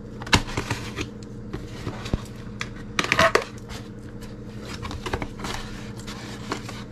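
Paper and plastic mailer packaging crinkling, rustling and tearing by hand as a taped parcel is opened, with scattered sharp clicks and a louder burst of tearing about three seconds in.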